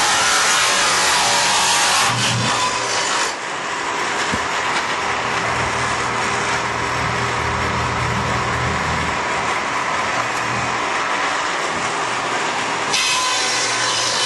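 Shopsmith table saw with a dado blade running steadily, cutting grooves in a wooden trivet blank. The louder cutting noise lasts from the start to about three seconds in and comes again near the end; in between, the blade spins free.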